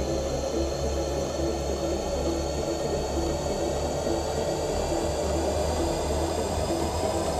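Dark ambient film score under end credits: a steady low, noisy drone with a faint regular pulse.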